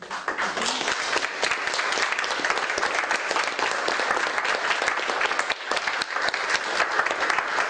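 Audience applauding: many people clapping steadily in a room, starting right at the beginning.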